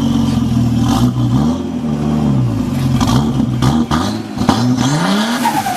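Turbocharged car engine revved up and down several times, with short fluttering chatter from the turbo as the revs drop off the throttle: compressor surge, the flutter the car is known for.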